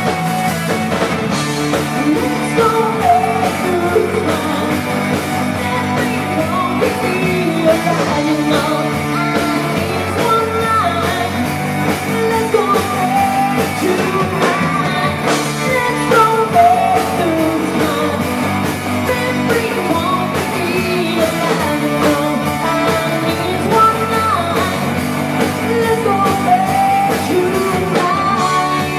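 Live rock band playing a song, electric guitar and drum kit under a lead singer singing.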